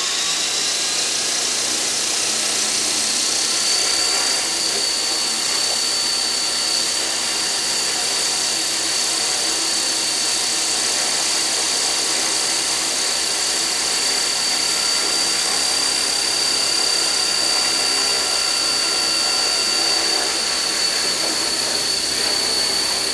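Walkera Dragonfly 22E radio-controlled electric helicopter running with its main rotor spinning. A high, steady motor whine climbs slightly in pitch over the first few seconds and then holds, over the rush of the rotor blades.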